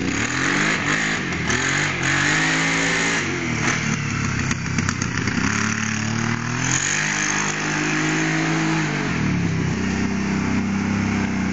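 Kawasaki Brute Force ATV engine running under a rider, its pitch climbing and dropping back several times as it accelerates and eases off, and held high near the end.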